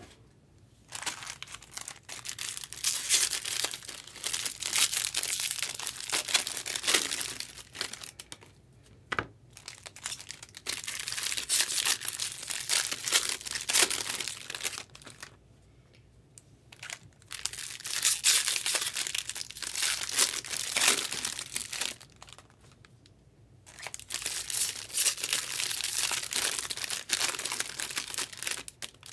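Foil trading-card pack wrappers being torn open and crinkled by hand, in several long stretches of rustling with short pauses between.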